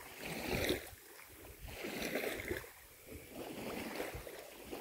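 Water sloshing and lapping around a dog swimming close to shore, in soft swells about every second and a half.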